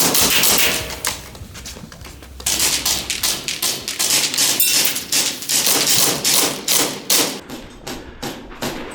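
Airsoft guns firing in rapid strings of sharp clicks, starting about two and a half seconds in and thinning out near the end, after a short burst of noise at the start.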